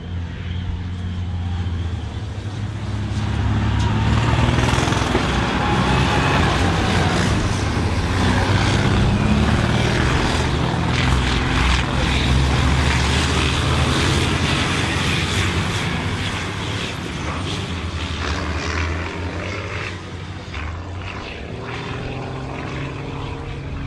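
Diesel engine of a stripped-down racing combine harvester running hard under full throttle as it drives past. It grows louder over the first few seconds, holds loud for about ten seconds, then fades.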